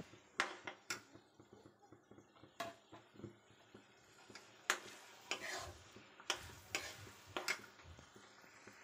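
Metal spoon stirring peas in a thick frying masala in a metal kadhai: faint, irregular scrapes and clinks of metal on metal, with a light sizzle between strokes.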